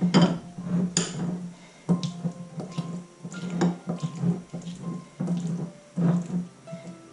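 Spoon stirring tuna and mayonnaise in a glass bowl, making wet, squelching strokes and scrapes against the glass, over background music.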